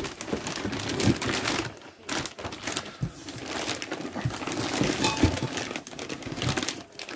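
Clear plastic bags around new exhaust pipes crinkling and rustling as they are handled in a cardboard box, an irregular crackle with a short lull about two seconds in.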